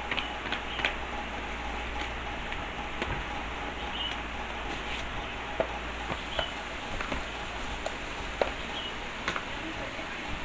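Packaging being handled on a wooden desk: scattered taps, clicks and rustles of a cardboard parcel and a cellophane-wrapped earbuds box being set down, over a steady background hiss. Short high chirps come every couple of seconds, about five in all.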